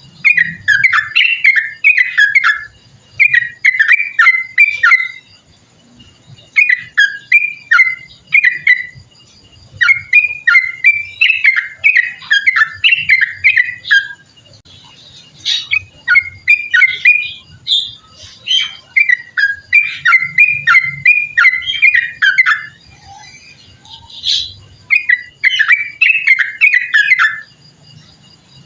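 Yellow-vented bulbul (trucukan) singing its long rolling song: runs of rapid, quickly falling whistled notes lasting a second or three each, repeated with short pauses.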